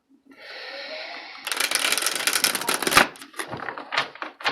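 A deck of tarot cards being shuffled by hand: a soft sliding hiss, then a quick riffle of dense clicking for about a second and a half, followed by a few separate card taps.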